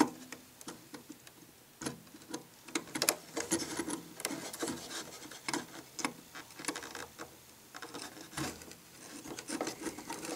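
Irregular small scrapes, clicks and taps of a hand pin vise, its bit turned against the plywood servo mount to mark the servo's screw holes.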